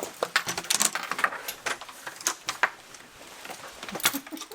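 Irregular light clicking and clattering of small hard objects being handled, a couple of dozen sharp ticks spread unevenly.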